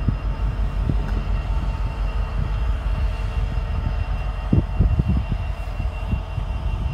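Diesel locomotives idling, a steady low rumble with a thin high whine over it; the engines are running as if about to move. A few dull knocks come through around the middle.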